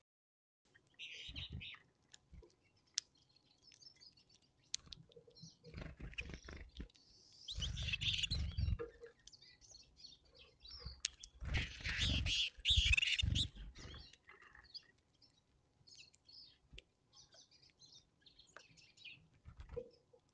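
Small finches at a seed feeder right by the camera microphone: scattered short chirps, with two louder bursts of rustling and low thumping about eight and twelve seconds in as birds land and move on the feeder.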